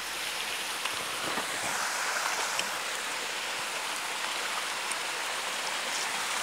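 Shallow stream water running steadily over stones, with a few faint ticks.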